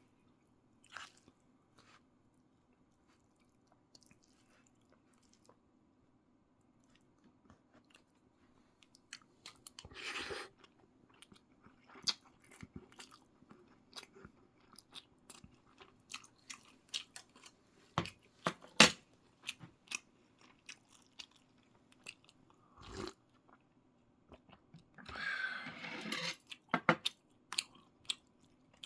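Close-up eating sounds: a person chewing and crunching food, with many sharp clicks and smacks. It is nearly quiet for the first several seconds and grows busier from about a third of the way in, with two longer noisy stretches.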